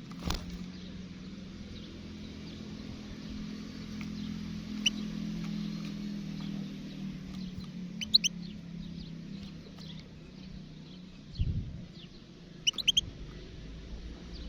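Sparse, short chirps from a wild European goldfinch: a single note, then quick clusters of two or three notes about halfway through and near the end. A steady low hum runs underneath, with a couple of dull thumps.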